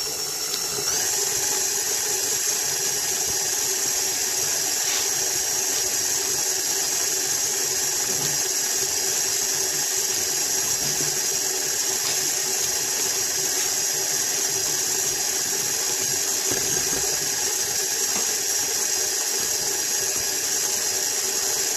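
KitchenAid Artisan stand mixer running steadily as it creams butter and sugar in its steel bowl, with a steady motor whine that gets a little louder about a second in.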